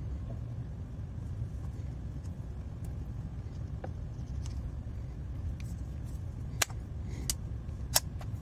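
Wera Kraftform Kompakt screwdriver being handled: a few light ticks, then three sharp metallic clicks about two-thirds of a second apart near the end, as bits and the telescopic bit holder are worked. A steady low rumble runs underneath.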